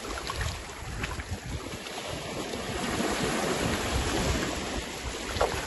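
Small waves breaking and washing over shallow water, swelling louder about halfway through, with wind rumbling on the microphone.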